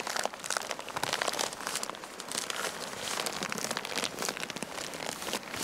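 Newspaper crinkling and rustling, a run of uneven crackles, as a whole stuffed fish is rolled up in it by hand.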